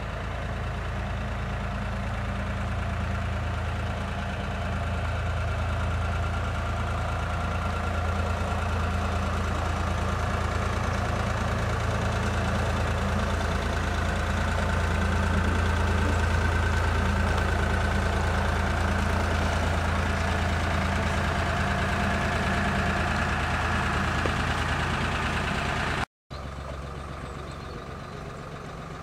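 Narrowboat's inboard diesel engine running at a slow, steady chug as the boat motors past, growing louder toward the middle as it draws level. Shortly before the end the sound cuts to a quieter engine hum heard from aboard a moving narrowboat.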